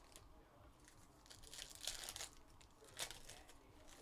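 Faint crinkling and tearing of a foil trading-card pack wrapper being opened, with a louder stretch about halfway through and a sharp crackle near the end.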